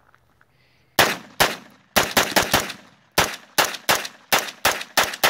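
MK-9 9mm AR pistol, fired without its flash hider, shooting a rapid string of about a dozen shots, irregularly spaced, starting about a second in.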